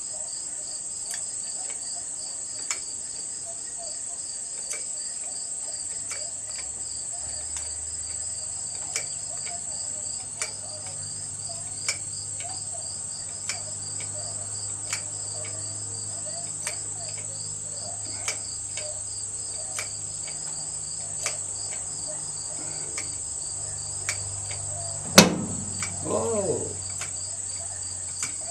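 Crickets chirping steadily, with faint regular clicks about every second and a half and a low hum joining after about six seconds. Near the end comes one sharp, loud crack.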